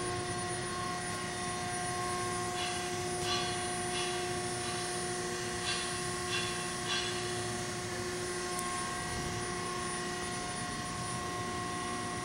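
Steady machinery hum: a constant whine made of several steady tones over a broad hiss, with a few faint short clicks in the middle.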